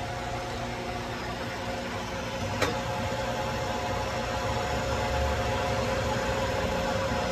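Metal lathe running, rough-turning the face of a used aluminum scooter clutch plate: a steady mechanical hum with a faint whine. A single sharp click comes about two and a half seconds in, after which the whine is a little stronger and the sound slightly louder.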